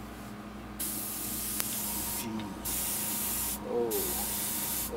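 Airbrush spraying paint onto a lure, a steady high hiss that starts about a second in and comes in three bursts with two short breaks.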